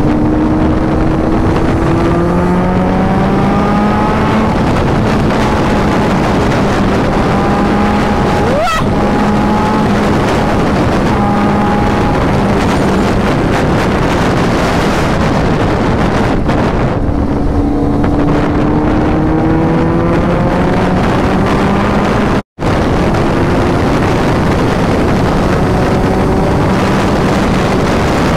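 Kawasaki Z900 inline-four engine accelerating hard on the highway through fifth and sixth gear, its note rising in pitch twice as the revs climb, over heavy wind rush. About two-thirds through, the sound cuts out for a split second.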